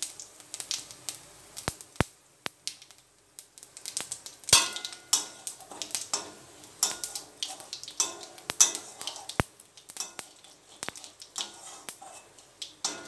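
Flat metal spatula scraping and clinking irregularly against a karai (wok) while stirring cumin seeds and dried red chillies frying in mustard oil, over a light sizzle of the oil.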